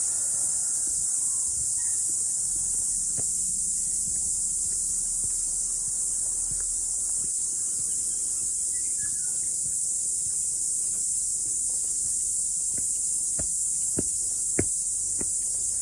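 Cicadas singing in a steady, high-pitched drone. A few sharp clicks come near the end.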